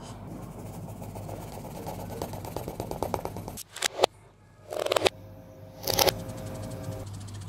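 Pencil scratching on paper: quick, even shading strokes, then three louder sweeping strokes about four, five and six seconds in, over a steady low hum.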